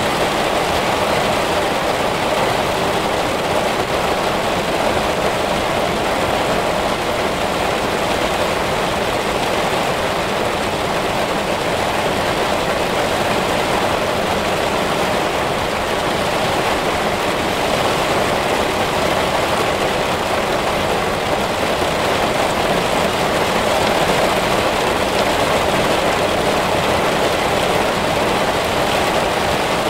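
Heavy rain pouring steadily through spruce trees, an even, unbroken hiss.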